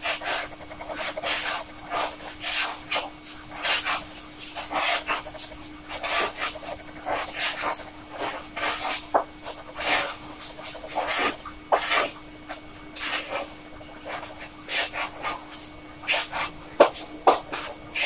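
Fountain pen nib scratching across paper in short, quick hatching strokes, a few per second at an irregular pace.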